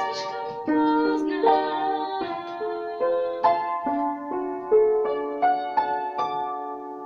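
Solo piano playing a melody over chords, each note or chord struck and left to ring as it fades.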